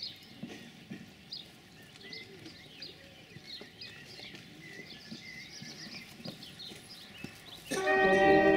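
Birds chirping over a quiet outdoor background, with a few faint knocks. About a second before the end, a brass band starts playing loudly, held chords.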